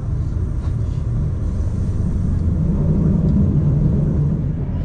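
Passenger train running, a steady low rumble heard from inside the carriage, swelling slightly about three seconds in.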